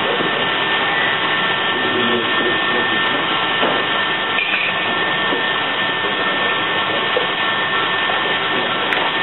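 Restaurant kitchen ambience: a steady rush of extraction hoods and kitchen machinery with a faint steady whine, a few light clinks of utensils, and a sharp click near the end.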